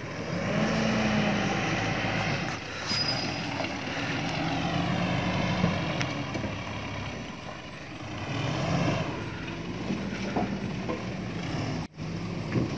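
Mitsubishi Triton 4x4 pickup engine labouring up a slippery mud track. The revs rise and fall in surges as it works for grip.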